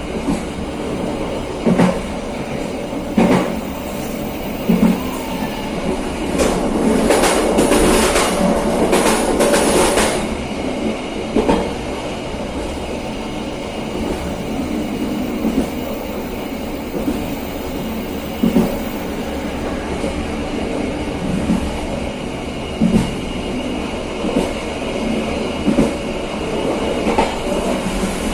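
Passenger train running along the track, with a steady rumble and a wheel clack over the rail joints about every one and a half seconds. A louder, rattling stretch comes about a third of the way in.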